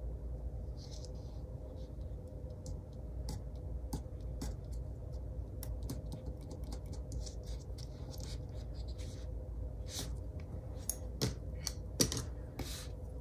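Scattered light clicks, taps and scrapes from paper, stickers and small crafting tools being handled on a desk, over a low steady hum. The clicks grow louder and more frequent in the last few seconds.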